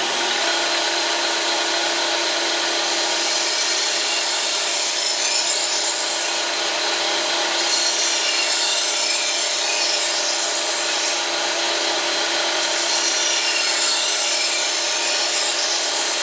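2x72 belt grinder running with a steady whine, a knife edge being ground on the moving belt in a sharpening jig. The grinding hiss grows louder and fades again every few seconds as the blade is passed along the belt.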